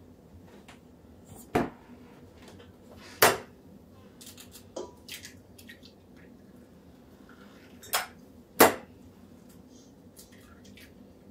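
Eggs being knocked against the rim of a stainless steel stand-mixer bowl and cracked in: four sharp knocks, the last two about half a second apart, with lighter clicks and taps between them.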